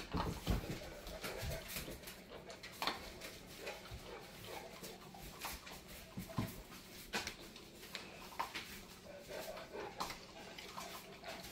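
Cane Corso puppies eating dry food from a bowl: faint, irregular crunches and clicks about once a second or two.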